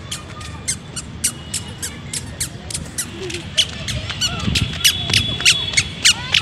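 A small animal's repeated high-pitched chirping calls, about three or four a second, getting louder about halfway through.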